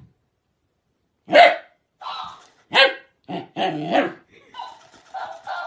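Dog barking in a run of short barks after a second or so of quiet. The loudest comes about a second and a half in and another strong one just under three seconds in, with shorter barks between and after.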